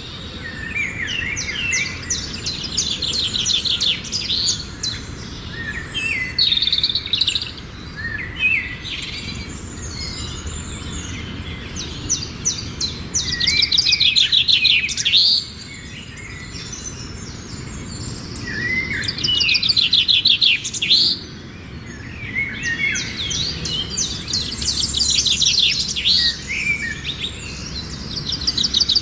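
Songbird singing outdoors: repeated phrases of rapid, high trills and chirps, each a second or two long, with short gaps between them.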